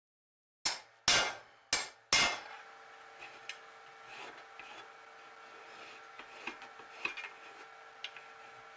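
Four sharp knocks in quick succession, each dying away briefly, then a faint steady hum with scattered light clicks.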